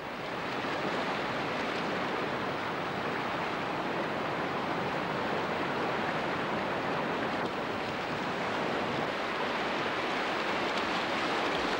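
Whitewater river rapids rushing steadily: a dense, even hiss of turbulent water.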